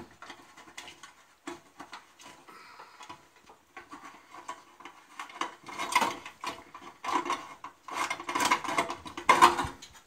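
Irregular metal scraping, clicking and rattling as a hand works a lamp holder into the sheet-metal cavity of a dismantled microwave oven. The scraping grows busier and louder over the last few seconds.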